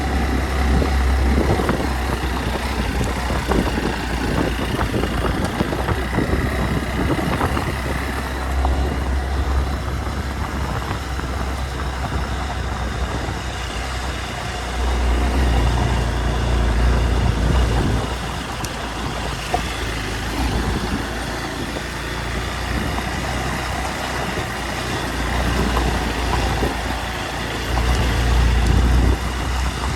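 Hero Xpulse 200 single-cylinder motorcycle running while being ridden on a rough track, a continuous engine and riding noise with a heavy low rumble that swells a couple of times.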